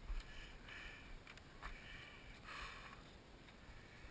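Heavy, labored breathing of an exhausted runner close to the microphone: four breaths, roughly one a second.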